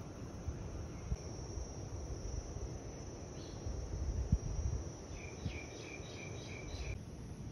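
Insects droning steadily on one high note, with a run of about five quick chirps near the end. Low wind rumble and a few soft bumps sit underneath.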